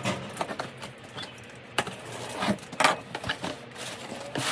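Irregular clicks, taps and knocks of objects being handled, with a few sharper knocks around the middle.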